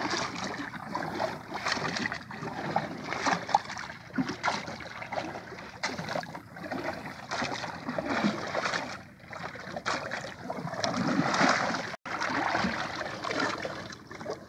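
Sea water lapping and splashing against the hull of a small wooden outrigger canoe, with irregular knocks and splashes.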